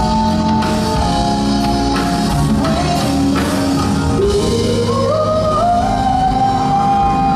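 Live band playing an R&B ballad while a male singer sings, sliding upward about four seconds in and holding a long high note until near the end.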